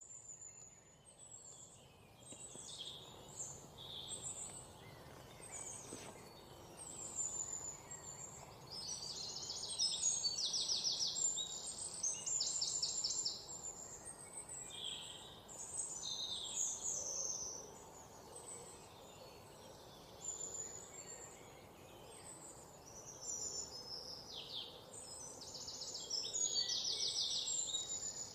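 Several forest birds singing over a faint background hiss: scattered chirps and whistles throughout, and rapid buzzing trills that come in bunches about a third of the way in and again near the end.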